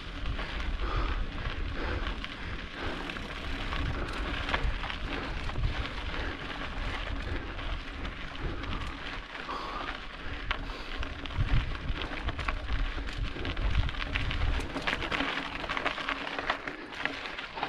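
Mountain bike rolling over a rough, rocky dirt trail: the tyres crunch on gravel amid a constant clatter of small clicks and rattles. A low rumble of wind on the microphone comes and goes underneath.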